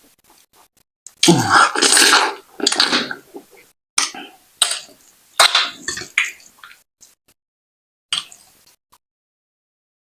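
Close-miked eating sounds of fufu with ogbono soup: wet mouth and chewing noises in a string of short bursts, the loudest and longest about a second in.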